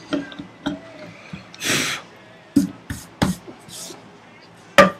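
Hand-tool work on wood at the bench: a short scraping stroke, then a few sharp knocks of tools on wood, the loudest near the end.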